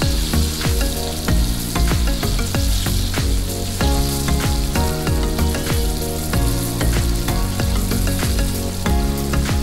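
Flour-coated chicken pieces deep-frying in hot oil in a pan, a steady bubbling sizzle; this is the second fry that crisps the outer coating. Background music with held notes plays underneath.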